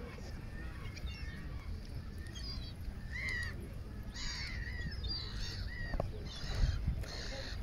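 Birds calling: a string of short, harsh calls, more frequent in the second half.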